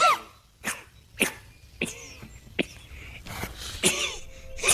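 Cartoon toy penguin coughing: a series of short, dry coughs, about one every half second to a second.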